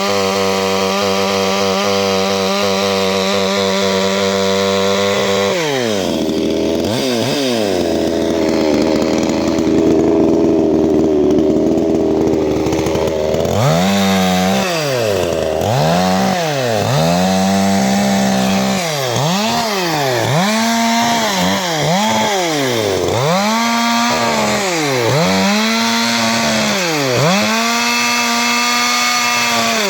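CanFly 54.6 cc two-stroke chainsaw engine, a four-transfer-port design, held at high revs for about five seconds, then dropping to a lower, rougher pitch for several seconds. From about halfway through it is revved up and let fall back about ten times in quick succession.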